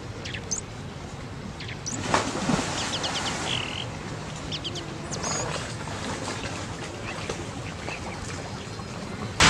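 Birds chirping and calling in short, scattered notes over the steady rush of flowing canal water.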